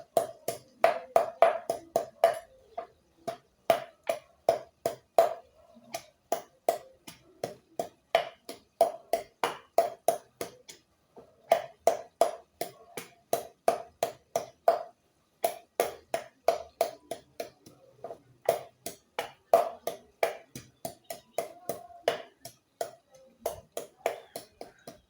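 Garlic being pounded. Rapid repeated strikes come at about three or four a second, each with a short ringing note, in runs broken by brief pauses.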